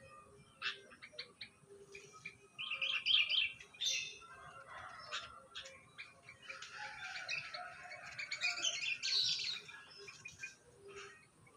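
Birds chirping and twittering in short, quick notes: scattered single chirps, a rapid run of chirps about three seconds in, and denser overlapping chatter through the middle of the stretch.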